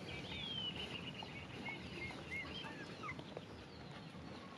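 Faint animal calls: several short, high-pitched chirps scattered through, some bending up or down in pitch, over a low steady background hiss.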